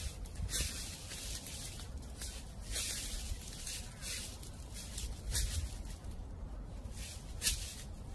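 Dry fallen autumn leaves crunching and rustling in short, crackly bursts about once a second, with a brief lull past the middle, over a low steady rumble of wind.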